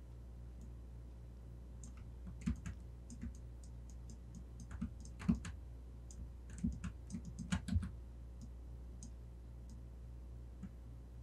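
Computer keyboard and mouse clicks, scattered, bunching up in the middle, over a steady low electrical hum.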